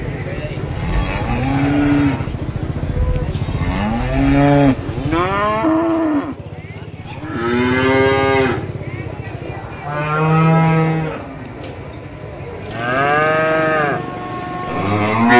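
Cattle mooing over and over: about seven long calls a couple of seconds apart, each rising then falling in pitch. A low steady rumble runs under the first few seconds.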